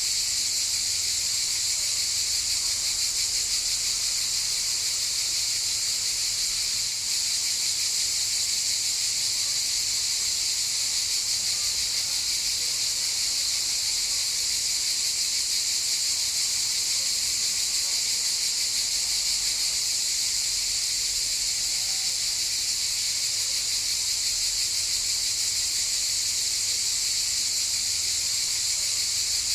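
Cicadas chorusing: a steady, unbroken high-pitched buzz.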